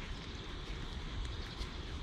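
Wind buffeting the microphone, a steady uneven low rumble, with a few faint ticks scattered through it.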